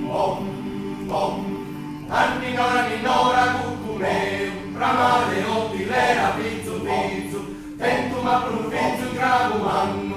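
Male choir singing a Sardinian lullaby a cappella in close harmony. Low voices hold a steady chord, and fuller upper voices come in about two seconds in.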